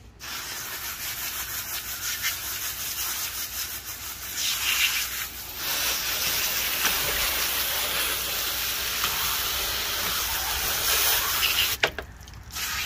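Garden hose spraying water onto a metal fish-cleaning table, a steady hiss and spatter of water rinsing the table and fillets; it stops about a second before the end.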